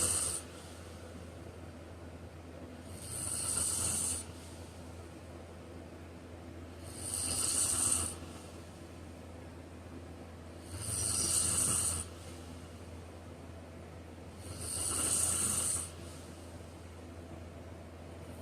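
A man snoring in slow, regular breaths: a raspy, hissy snore about every four seconds, each swelling and fading over a little more than a second, with a steady low hum underneath.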